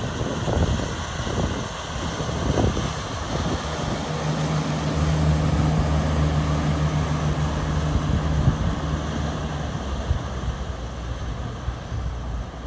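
Wind buffeting the microphone, with a low, steady engine hum that comes in about four seconds in and fades near ten seconds.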